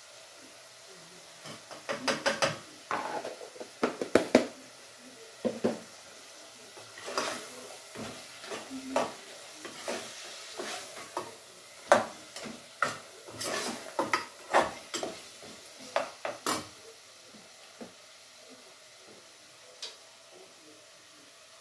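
A metal slotted spoon scraping and clinking against a non-stick pot as a meat stew is stirred, in irregular strokes that stop about 17 seconds in, over a faint steady sizzle from the pot.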